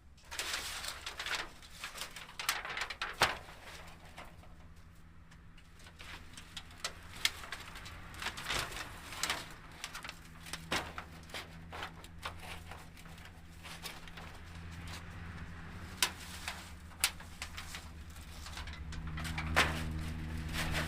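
Irregular sharp knocks and scrapes, with a low steady hum that grows louder near the end.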